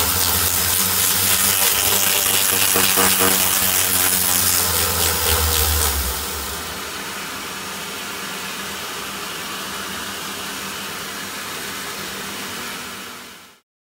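Flexible-drive polisher spinning a felt polishing bob against the inside of a cylinder head port, a steady motor hum with a hiss, to blend the grinding marks. About six seconds in the low hum drops away and a quieter steady hiss carries on, then all sound cuts off abruptly near the end.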